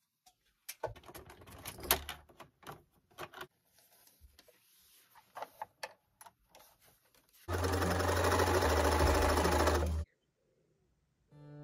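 Scattered clicks and handling sounds, then a Bernina electronic sewing machine stitching steadily for about two and a half seconds before it stops abruptly.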